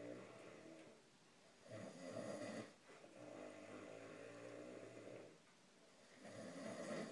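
A man snoring heavily in his sleep: long snores separated by short pauses.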